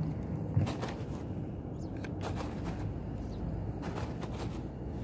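Phone handling noise: a sleeve rubbing and brushing against the microphone in several scuffling bouts, with one sharp knock about half a second in, over a steady low rumble of outdoor background.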